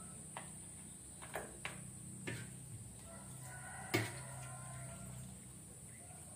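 Boiled mangrove clam shells clattering as they are scooped out of a pot and dropped into a plastic container: a few scattered sharp clicks and knocks, the loudest about four seconds in.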